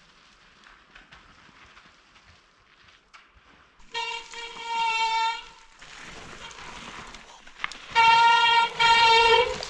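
Mountain bike brakes squealing three times, each a loud, steady, high-pitched squeal lasting about a second, over the rolling noise of the ride.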